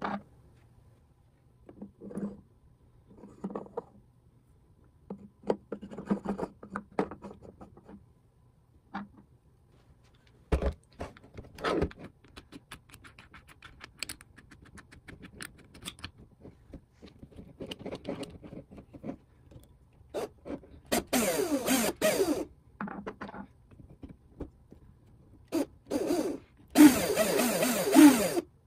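Clicks, taps and scrapes of hard plastic gear parts and a metal drill bit being handled, with a run of quick clicks as the bit is fitted into a cordless drill's chuck. Near the end the cordless drill runs twice, once briefly and then for about two seconds, its motor whine rising and falling in pitch.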